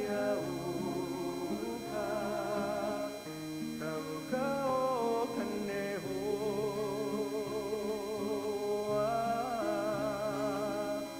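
Background music: a song with a singer holding wavering notes over steady accompaniment.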